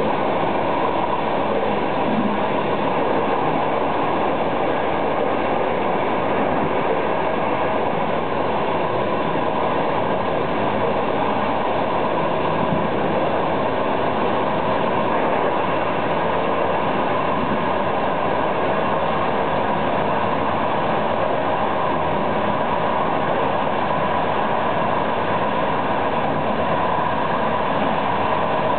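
Intercity passenger train running steadily along the line, a constant rolling noise of wheels on rails, heard from the rear end of the train.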